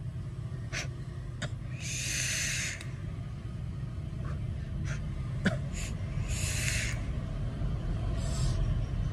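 A person exhaling vape clouds in long breathy puffs, two strong ones about two and six seconds in and a fainter one near the end. A few small clicks fall in between, over a steady low hum.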